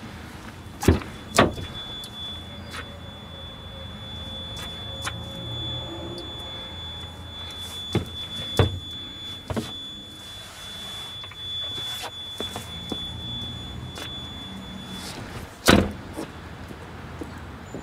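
Cab door of a VW Crafter van opened with two clunks about a second in, a few clicks in the middle, and shut with a loud thump near the end. A low steady hum runs underneath, and a thin steady high tone is heard for most of the time the door is open.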